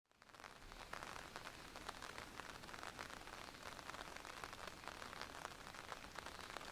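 Steady patter of rain on leaves and surfaces, a soft hiss dotted with many small drop ticks, fading in over the first half second.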